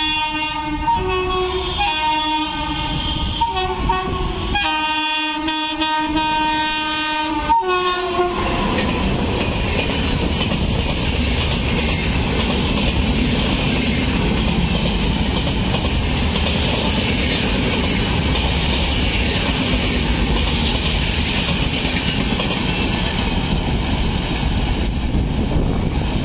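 A WAP7 electric locomotive sounds its horn in several blasts, the last a long one of about three seconds. A double-decker express train then passes at speed, wheels clattering over the rail joints.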